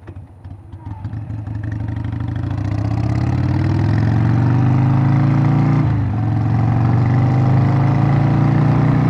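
Air-cooled Evolution V-twin of a 1997 Harley-Davidson Sportster 1200 pulling away from a stop, its pitch and loudness climbing as it accelerates. About six seconds in there is a brief dip as it shifts up, then the pitch climbs again.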